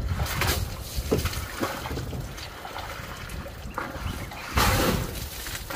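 An African elephant working its trunk in a muddy puddle: wet sloshing and trickling of mud and water, with a louder rush of splatter about four and a half seconds in.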